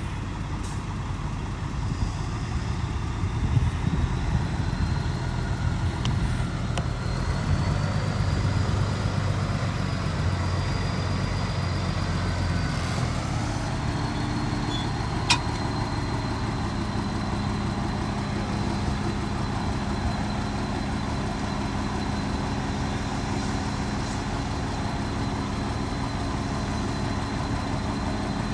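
Heavy diesel engine running, working harder for the first ten seconds or so, then settling into a steady idle-like hum with a faint high whine. A single sharp click comes about fifteen seconds in.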